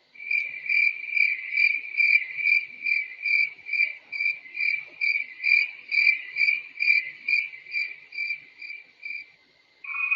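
Cricket chirping sound effect, the 'crickets' meme used to mark an awkward silence: a steady high chirp repeating about two and a half times a second, stopping about nine seconds in.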